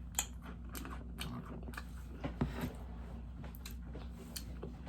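Crunching and chewing of a thin vanilla Dunkaroos cookie eaten without its dip, in scattered crisp clicks over a low steady hum.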